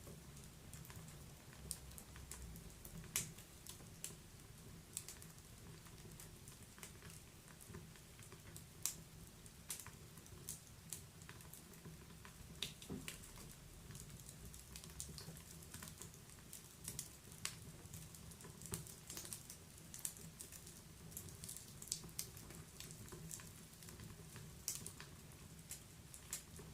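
Wood fire crackling in a fireplace: faint, irregular pops and snaps, a few of them sharper, over a low steady rumble.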